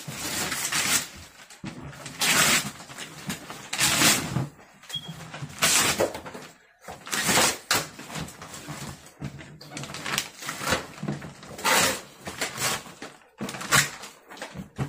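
Gift wrapping paper being ripped and crumpled off a large cardboard toy box, a string of separate sharp rips and rustles every second or two.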